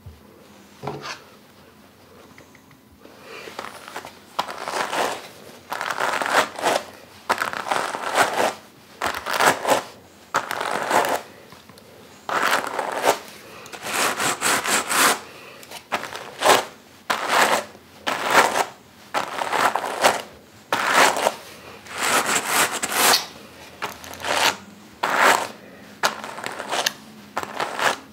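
Pair of wooden wool hand cards combing wool: scratchy brushing strokes as the wire teeth of one card drag through the fleece on the other, coming roughly two a second from about four seconds in. This is carding, which combs the fibres into one direction and clears out impurities before spinning.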